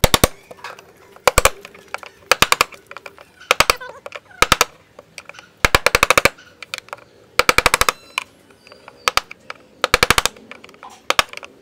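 Metal tool scraping and cutting at a hard plastic knockout, in short bursts of rapid sharp clicks about once a second.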